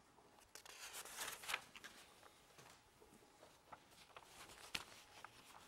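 Near silence: room tone with faint scattered rustles and light ticks, the loudest about a second and a half in.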